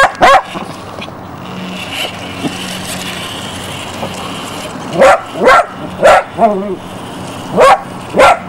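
Border Collie puppy barking in quick bursts: two barks at the start, four more about five seconds in, and two near the end. Between them a radio-controlled toy car's motor whirs steadily.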